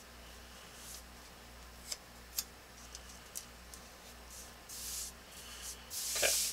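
Blue painter's tape being pressed onto the corners of a sheet of tracing paper, giving a few short ticks. Then both palms rub the paper flat, a rustling hiss that grows louder near the end.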